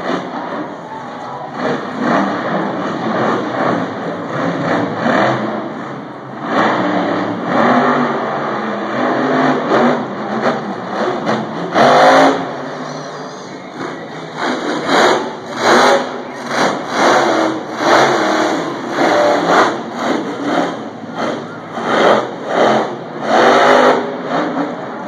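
Monster truck engine revving hard, heard from the stadium stands, with repeated throttle surges through the second half.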